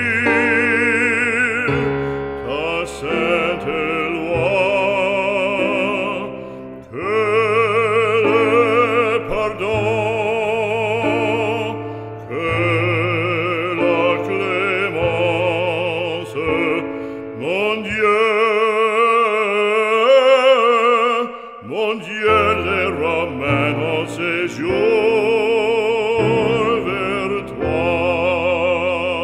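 Background music: operatic singing with strong vibrato over sustained accompaniment.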